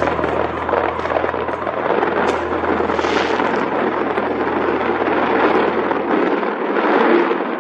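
Fireworks display heard as a continuous dense rumble and crackle, with a low steady hum underneath that stops about six and a half seconds in.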